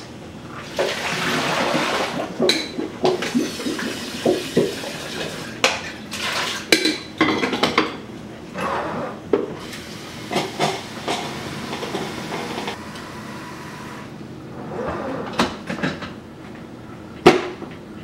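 Water pouring and splashing, with a glass coffee carafe clinking, as a drip coffee maker's reservoir is refilled with clean water for a rinse cycle. Plastic clicks of the lid come between, and one loud sharp click near the end as it is switched on.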